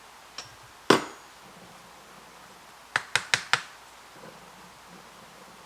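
Sharp knocks of metal espresso gear being handled: one loud knock with a short ring about a second in, then four quick knocks in about half a second.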